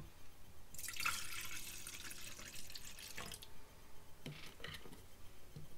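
Cider pouring from a jug into a drinking glass in a steady stream for about two and a half seconds, then a few short clicks.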